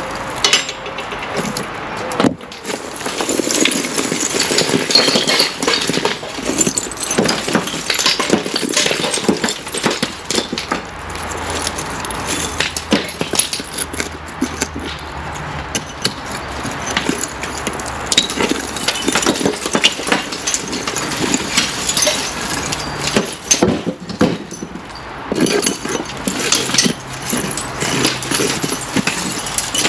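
Loose old mortar and broken brick being raked and scraped out of a cavity wall by a gloved hand and a metal scraping tool. Stones and grit clatter and grate in many small, irregular knocks and scrapes, with short pauses.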